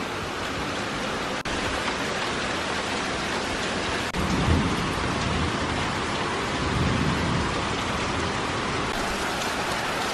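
Heavy rain pouring steadily, with two low rumbles, one about four seconds in and one about seven seconds in.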